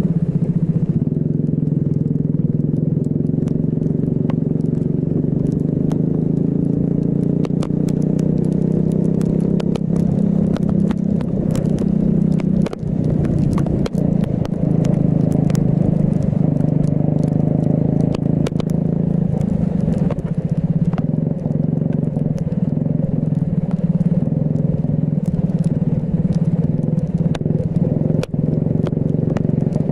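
Racing kart engine running hard, its pitch rising and falling as it accelerates and lifts for corners, dropping briefly a few times. Frequent sharp clicks and crackles sound over it.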